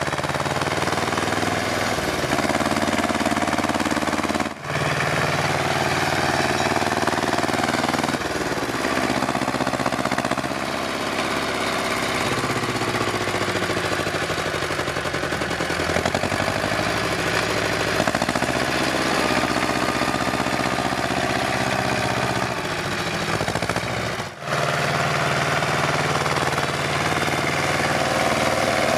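Ursus C-330 tractor's two-cylinder diesel engine running under load as it pulls a tine harrow, its note rising and falling. There are two brief dropouts in the sound.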